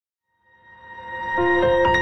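Silence, then a music sting fades in about half a second in and builds, with sustained notes entering one after another.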